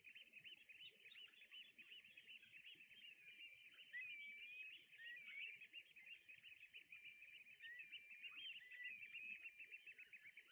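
A flock of birds calling, many short overlapping chirps with a few longer whistled glides, faint and thin in pitch throughout.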